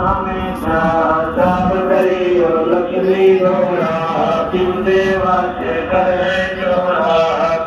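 Devotional chanting, a hymn sung in long held notes that glide between pitches.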